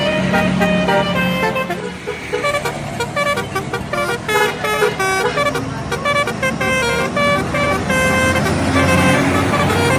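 Telolet horn on an Indonesian bus playing a quick melody of stepped, changing notes, with the bus engine rumbling underneath.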